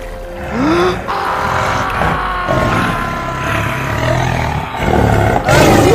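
Dubbed animal roar sound effects over background music, loudest just before the end.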